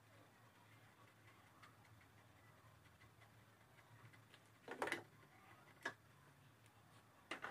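Near-silent hand work with a socket wrench on the battery mount nuts, giving a few short metallic clicks: a small cluster about five seconds in, one near six seconds, and a couple more near the end.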